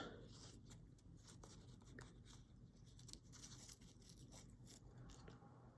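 Near silence with faint small clicks and rustling: hands quietly handling small objects.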